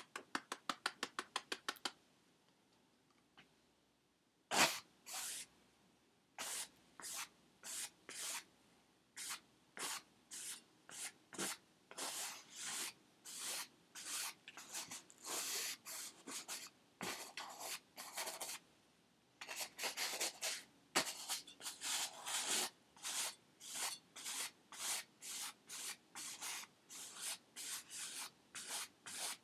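Paintbrush strokes on a stretched canvas: dry, scratchy brushing in an uneven rhythm of roughly two strokes a second, after a quick flurry of short strokes in the first two seconds.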